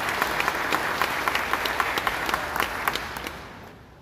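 Audience applauding, the clapping dying away over the last second.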